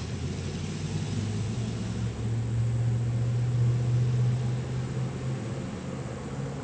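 A distant engine droning, swelling for a few seconds and then fading, over a steady high hiss.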